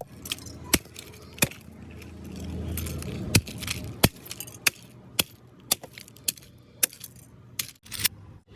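A series of sharp clicks and taps, irregular at about one or two a second, over a low rumble that swells and fades about halfway through.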